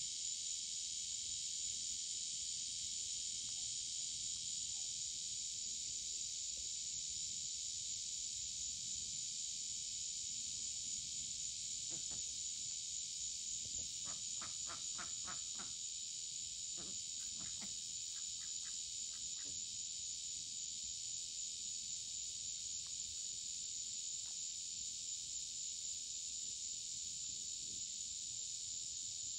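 Steady, high-pitched chorus of crickets and other night insects. About halfway through, a run of short, quick calls sounds for several seconds, about five a second at first, then more spaced out.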